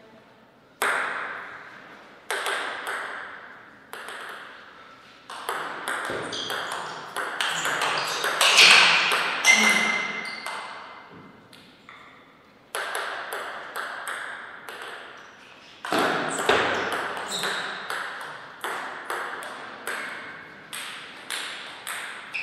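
Table tennis ball clicking off paddles and the table in rallies, each hit sharp with an echoing tail. A few spaced hits come first, then two quick exchanges, the first about a third of the way in and the second near the end.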